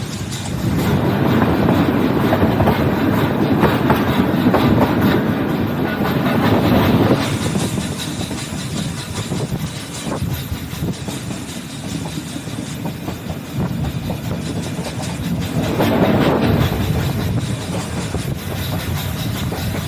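Nilgiri Mountain Railway toy train running along the track, its wheels clattering on the rails. It grows louder for several seconds after the start and again near the end.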